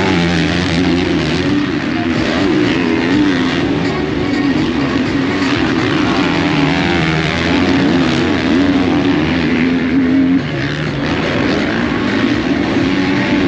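Motocross bikes racing on the dirt track, their engines revving up and down as the riders accelerate, shift and back off.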